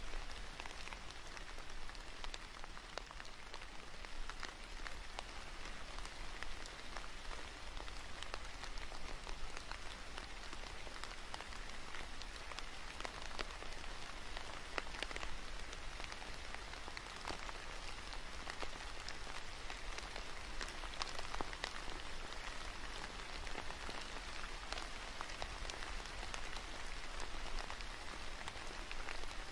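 Steady rain falling, an even hiss dotted with many separate drop ticks.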